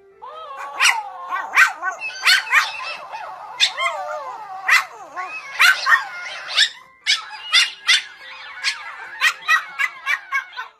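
A dog barking in a rapid series of sharp, high yips, about seventeen in all and coming faster near the end, with bending whining cries between the barks.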